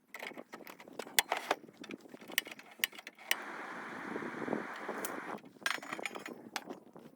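Sharp clinks and clatter of small hard objects being handled, with a steady hiss lasting about two seconds in the middle.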